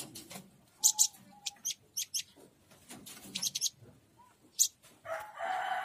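White-eye (pleci daput) calling in short, very high chirps in scattered bursts. The call is described as fierce and is used to lure wild white-eyes in. Near the end a lower, rougher sound lasts just under a second.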